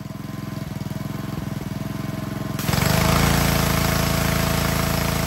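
Gas pressure washer's Honda engine running steadily with the wand trigger released, the unloader valve bypassing the pump. About two and a half seconds in the trigger is pulled: a loud hiss of the water jet hitting concrete comes in and the engine labours under the pump's load, the unloader valve just turned in for more pressure.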